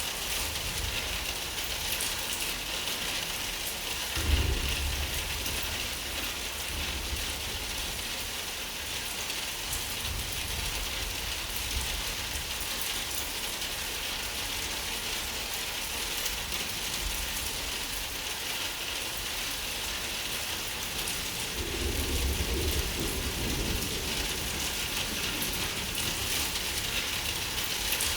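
Steady heavy rain, an even hiss of falling drops. A sudden clap of thunder about four seconds in, and a longer low thunder rumble about twenty-two seconds in.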